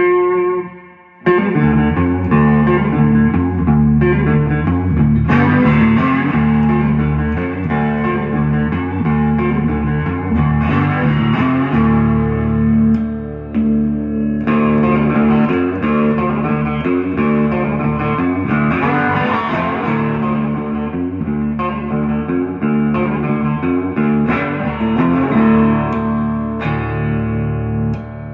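Restored Egmond Solid 7 solid-body electric guitar being played: a single note rings out, then about a second in comes continuous playing of chords and low-string riffs.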